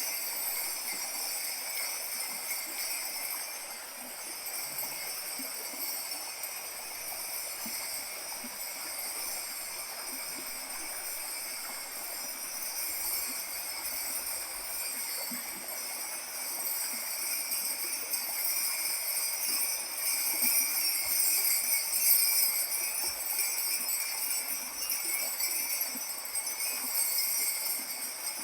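Kaskawillas, Mapuche bronze jingle bells, shaken continuously in a dense, steady shimmer that imitates the sound of falling water. It swells louder about two-thirds of the way through.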